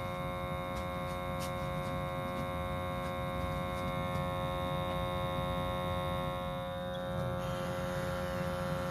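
Natural gas boiler running steadily during a combustion check, a constant pitched hum with many overtones over a low rumble; the higher overtones drop away about seven seconds in.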